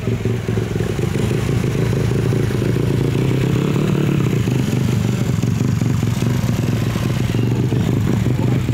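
Car engine idling steadily close by, a low, even exhaust note with no revving.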